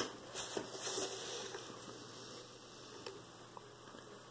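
Small workbench handling noises: a sharp click at the start, then about a second of rustling as a hand moves over paper plans, and a few faint ticks later as tweezers work on a small wooden ship model. A faint steady hum runs underneath.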